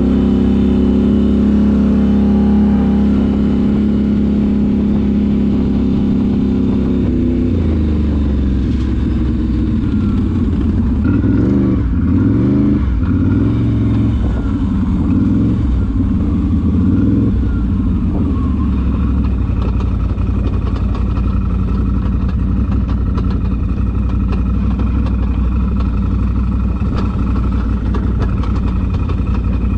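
ATV engine running under varying throttle, revs rising and falling: the pitch drops about seven seconds in, swoops up and down several times around twelve seconds, then settles to a steadier, lower note for the last third.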